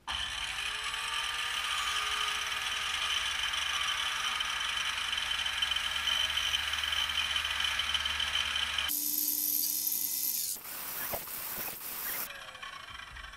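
Electric circular saw running and cutting into a softwood beam, making a series of closely spaced kerf cuts. The sound changes abruptly about nine seconds in, with a rougher, noisier stretch around eleven to twelve seconds before it drops quieter near the end.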